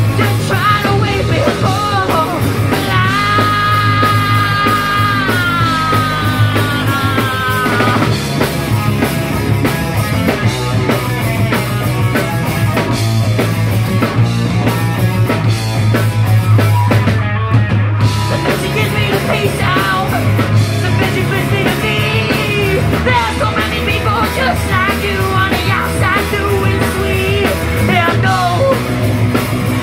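A live rock band playing, with drums, a heavy bass line and singing. A few seconds in, a long held note slides slowly down in pitch.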